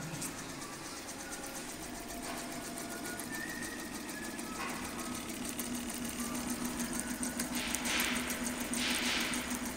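ROYAL YHC1501 single-head multi-needle embroidery machine stitching a logo onto a shoe: a fast, even needle clatter over a steady low hum, with two louder hissing swells near the end.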